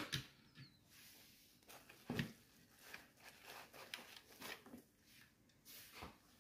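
Faint handling of small toys and packing: a die-cast toy bus set down on a table with a light tap, another knock about two seconds in, then soft crackling rustle of bubble wrap as a hand digs into a cardboard box.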